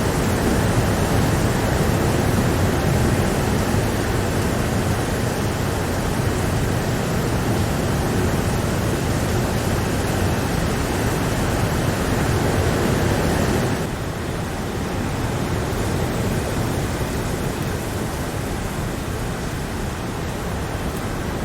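Steady heavy rain, a dense even hiss with no single drops standing out. About two-thirds of the way through it becomes slightly quieter and duller.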